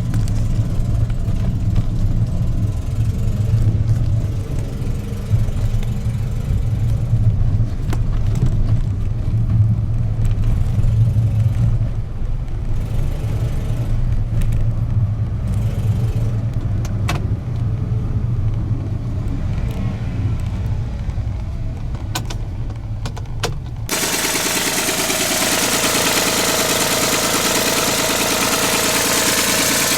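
Suzuki Wagon R's K6A three-cylinder engine running. About 24 seconds in the sound cuts abruptly from a low rumble to a brighter, closer, steady idle.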